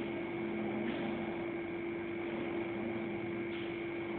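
Steady background hum with one constant tone, over an even hiss: room tone.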